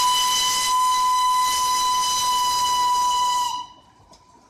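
Darjeeling Himalayan Railway locomotive's steam whistle blowing one long, steady, high-pitched blast with a hiss of steam, cutting off sharply about three and a half seconds in. A few faint clicks follow.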